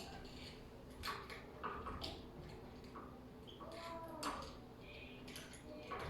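Scattered light clicks and taps of a doorknob's parts being handled and fitted during a repair.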